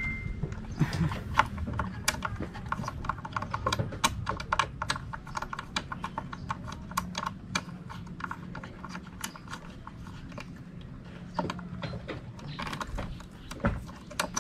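Quick, irregular light clicks and ticks, several a second, over a low steady hum.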